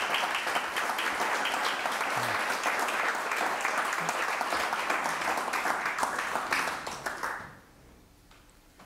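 Audience applauding, the clapping dying away about seven and a half seconds in.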